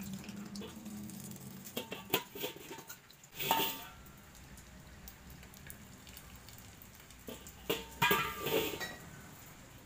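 A stainless steel wok being handled during seasoning: metal knocks and scrapes about two and three and a half seconds in, and a cluster near the end, with hot oil sizzling faintly in between.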